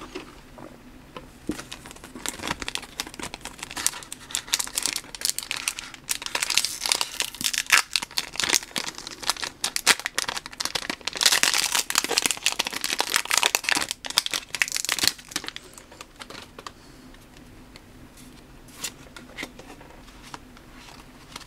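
Foil trading-card booster pack crinkling and tearing as it is ripped open by hand, a dense crackle that is loudest a little past the middle, then dies down to a few faint rustles near the end.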